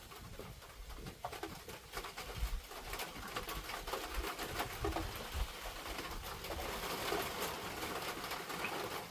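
Chickens making low crooning coos and clucks, with rain pattering and ticking that grows heavier over the second half as a downpour sets in.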